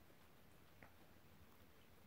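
Near silence with faint crunching of guinea pigs chewing sliced red bell pepper, one small crunch a little under a second in.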